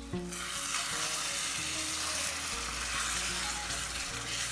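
Chicken and sorrel-leaf curry sizzling hard in a hot steel pan once water is added to make the gravy, and being stirred with a spatula. The sizzle starts suddenly just after the start and holds steady, with soft background music underneath.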